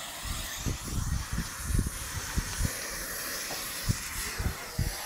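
Outdoor wind noise on the microphone: a steady hiss with irregular low buffeting thumps.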